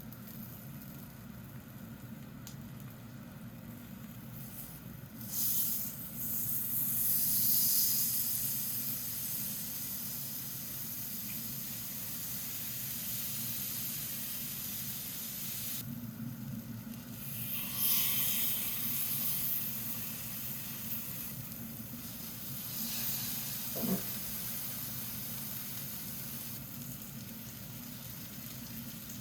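Food sizzling in a hot pan, the hiss swelling louder about five seconds in, again around eighteen seconds and briefly near twenty-three seconds, over a steady low hum.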